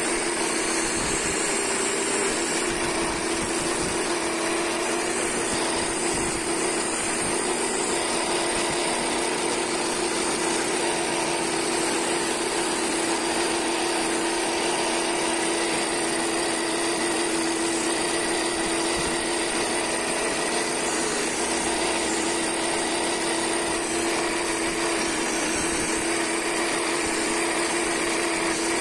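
Wood lathe running steadily with a flat scraper held on the tool rest cutting a spinning wooden stair baluster: a continuous scraping of steel on wood over the machine's steady drone.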